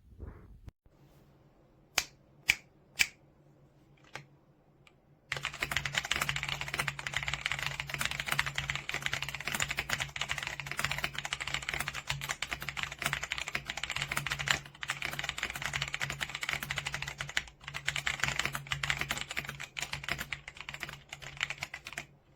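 AJAZZ AK820 75% mechanical keyboard: a few single keystrokes, then fast, continuous typing from about five seconds in.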